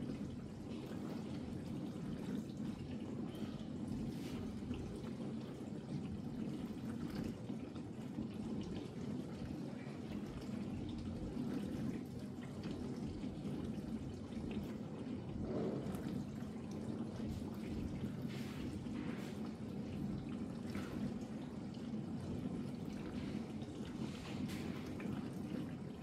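Ariston dishwasher running in test mode: a steady hum from the machine with water splashing and dripping inside the tub.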